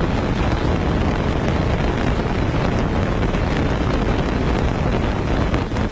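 Fireworks going off close by in a dense, continuous barrage of crackling and rumbling, with no single bang standing out.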